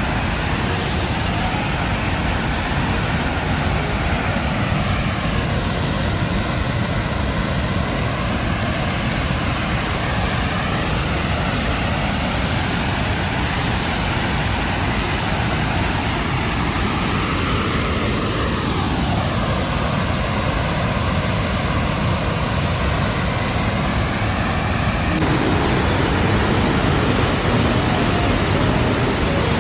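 Wapta Falls, a wide, heavy waterfall on the Kicking Horse River, pouring: a loud, steady rush of water with no break.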